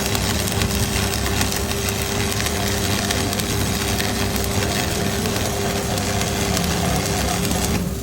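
Arc welding on a cracked truck rear axle housing: a steady crackling hiss that stops suddenly near the end, over the low hum of an engine running.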